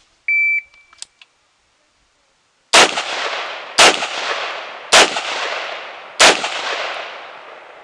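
A shot timer's steady start beep, then four AR-15 rifle shots about a second apart, each with a long echoing tail.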